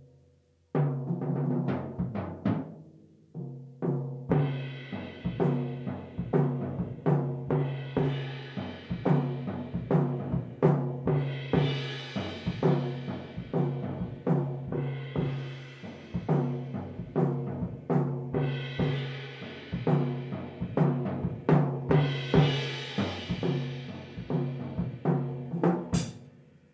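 Jazz drum kit solo: toms and bass drum struck in a fast, busy stream, with cymbal crashes swelling in about every three to four seconds. It stops with a last hit near the end.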